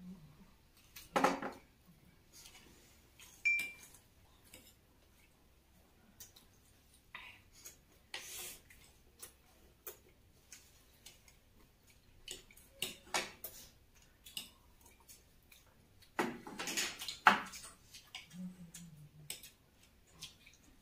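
Forks and plates clinking and scraping at a meal: scattered light clicks with a few louder clatters, the loudest about three-quarters of the way through.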